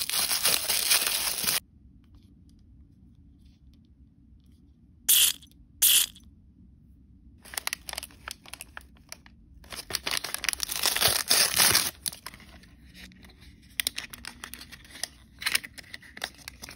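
Crinkly wrapping and blind-bag packaging being torn open and crumpled by hand, in uneven bursts of crinkling. There are two short sharp rips about five and six seconds in, and lighter scattered crackles of plastic packaging near the end.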